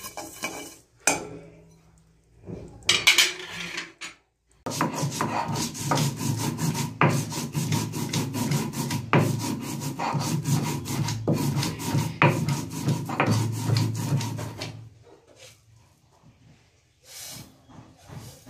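Stone roller rubbed back and forth over dried red chillies on a flat silauto grinding stone: a rough, rhythmic scraping grind. It starts about four and a half seconds in and stops about ten seconds later, after a few short clatters at the start.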